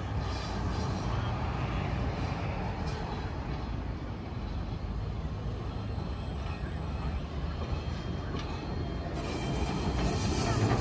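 Citadis X05 tram running on its rails: a steady rumble that grows a little louder near the end, with a hiss coming in over it.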